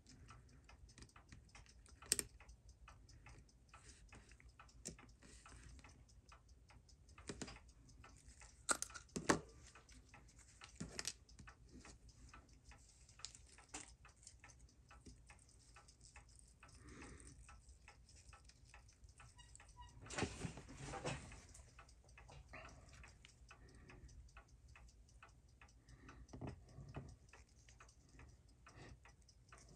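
Faint steady ticking under scattered small metallic clicks and taps of hand tools on the tiny steel parts of a Seiko 6139 chronograph movement, as its mainspring barrel is opened and the mainspring drawn out. There is a longer run of small scraping clicks about two-thirds of the way through.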